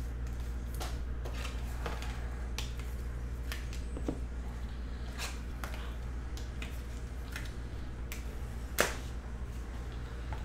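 Soft plastic crinkling and scattered light clicks as trading cards are slid into penny sleeves and rigid plastic top loaders, with one sharper, louder click near the end. A steady low hum sits underneath.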